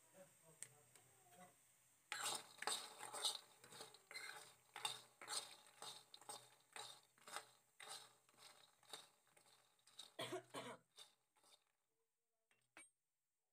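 A spoon stirring fried makhana (fox nuts) in a metal pan: repeated scraping and clattering strokes, about two a second, starting about two seconds in and stopping shortly before the end.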